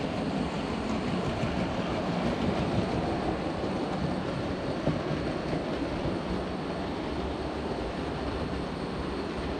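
Model trains running on a layout's track: a steady rumble of wheels and motors on the rails.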